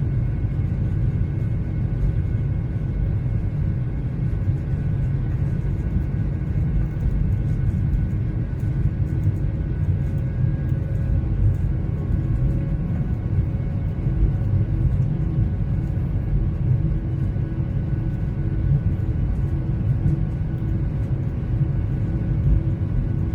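Jet airliner engines heard inside the passenger cabin: a steady, loud rumble with several steady whining tones over it.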